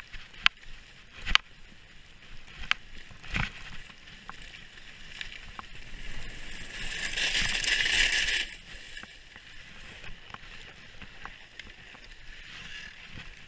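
Skis sliding over packed snow: a scraping hiss that builds to its loudest a little past the middle as the skier brakes, then cuts off suddenly. Sharp clicks and knocks come in the first few seconds, and fainter ones come later.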